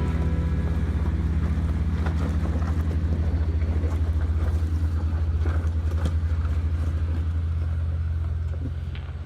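RC scale Toyota Land Cruiser crawling over rocks: a steady, low, engine-like drone with scattered small clicks and crunches, fading out near the end.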